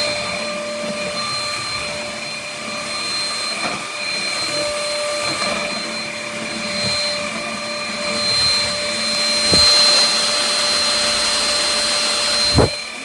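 UML0 N8 cordless stick vacuum running steadily with a high whine over the rush of its suction. Two knocks are heard, the sharper one near the end.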